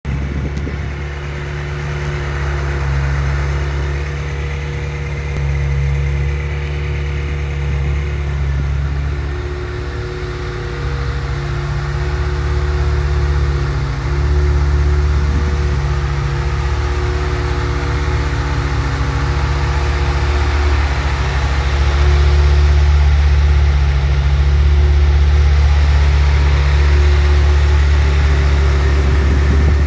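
Ferrari F355 Spider's 3.5-litre V8 idling steadily, growing somewhat louder in the second half.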